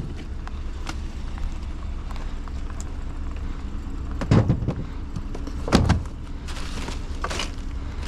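Steady low rumble of an idling vehicle engine, with a few light clicks and two louder clunks, about four and six seconds in, of scrap items being handled.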